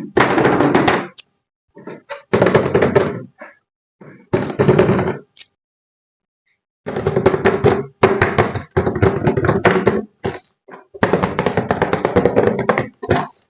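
Knocking and clattering in bursts of about a second, with short pauses between them and a longer pause in the middle: toys and their packaging being handled during an unboxing.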